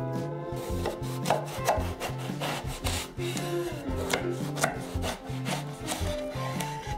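A kitchen knife cutting lengthwise through an aubergine on a wooden cutting board, with scattered sharp clicks of the blade, over background music with a steady bass line.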